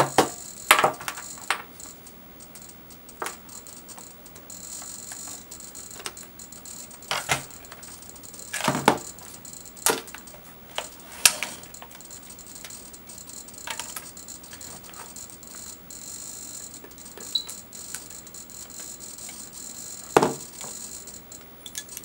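High, steady whine of the DJI Zenmuse Z15n gimbal's brushless motors holding and moving the camera, stronger in stretches as the gimbal is steered. Scattered sharp clicks and knocks come from the radio transmitter and joystick being handled on the tabletop, the loudest about halfway and near the end.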